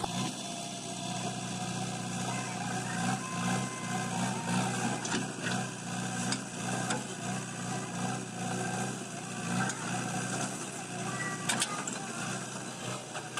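Backhoe loader's diesel engine running steadily, with a few sharp clicks or knocks on top.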